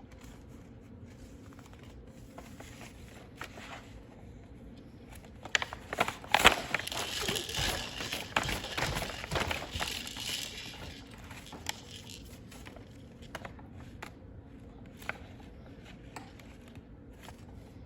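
A baby handling a children's book: scattered taps and knocks, with a longer spell of rustling and handling noise from about six to ten seconds in.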